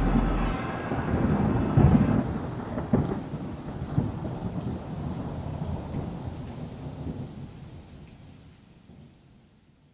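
Thunderstorm: rolling thunder over steady rain, with a few louder cracks in the first few seconds, the whole fading out to silence near the end.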